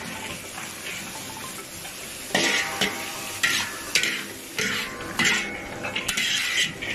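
Metal spatula striking and scraping a cooking pan while stir-frying a filling, giving a clang with a short metallic ring about twice a second from about two seconds in.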